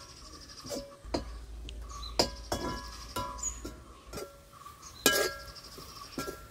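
Metal spatula knocking and scraping against a metal wok while stirring a dry stir-fry: a series of irregular clinks, each ringing briefly, the loudest about two seconds in and again about five seconds in.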